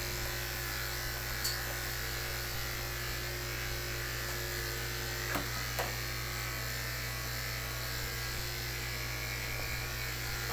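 Electric pet grooming clippers running with a steady buzz while shaving a dog's matted coat.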